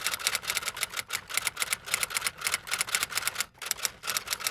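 Typewriter keys clacking in a fast, slightly uneven stream of sharp clicks, several a second, with a couple of brief pauses.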